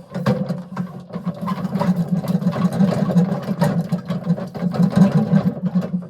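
Concrete mixer running, its motor and turning drum giving a steady, pulsing hum with the clatter of wet concrete inside the drum.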